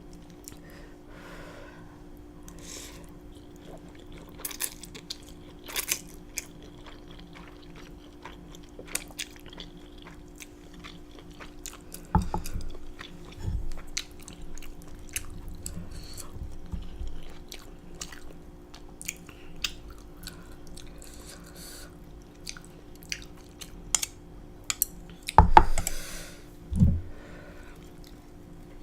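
Close-miked chewing of food, with many small wet mouth clicks over a faint steady hum, and a few louder low thumps about twelve seconds in and again near the end.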